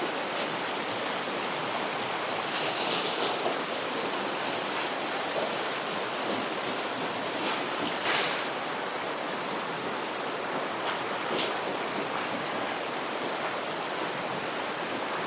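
Creek water rushing steadily over rocks, running high. Two brief sharp clicks stand out, about 8 seconds in and again about 11 seconds in.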